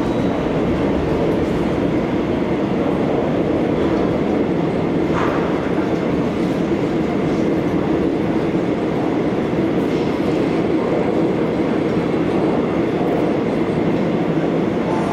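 Seoul Metro 2000-series subway car running through a tunnel, heard from inside the car: steady running noise of wheels on rails. One brief click about five seconds in.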